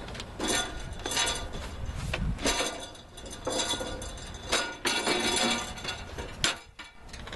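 A body panel being handled and slid into place on a Ford Explorer, scraping and clattering in several short bursts, with a sharp click about six and a half seconds in.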